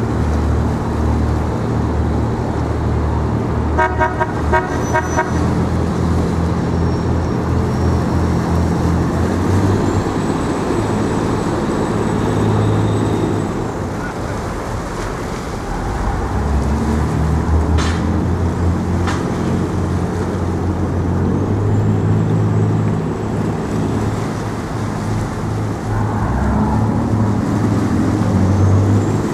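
Low, steady engine drone that shifts in pitch now and then, with a short pulsing horn toot about four seconds in.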